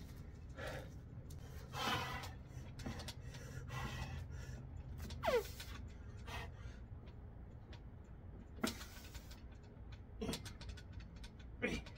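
Strained grunts and hard breaths from a man working through the last slow reps of bodyweight dips, several of them sliding down in pitch, spaced a few seconds apart.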